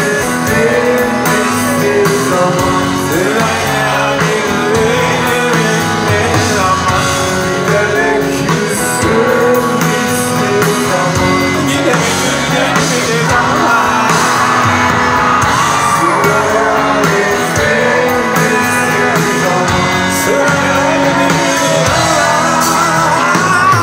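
Live rock band playing with a male lead singer, guitars and drums.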